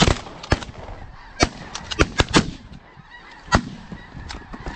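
A volley of shotgun blasts from several hunters, about a dozen shots in quick, uneven succession, over a background of geese honking.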